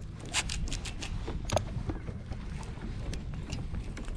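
Wind rumbling on the microphone over water lapping at a fishing boat, with several short sharp clicks and knocks.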